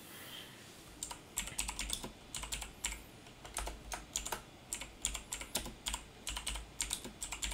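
Typing on a computer keyboard: a quick, irregular run of key clicks that starts about a second in.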